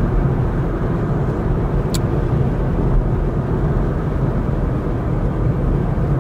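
Steady noise of a car driving on an asphalt road, heard from inside the car: a low engine hum and tyre rumble. There is a short faint click about two seconds in.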